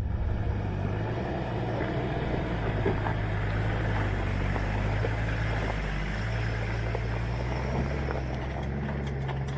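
Toyota Land Cruiser 76 series engine running steadily at low revs as the truck crawls over a rocky track, with stones crackling under the tyres.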